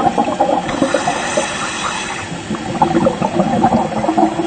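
Underwater ambient noise: a steady rushing hiss with dense small crackles.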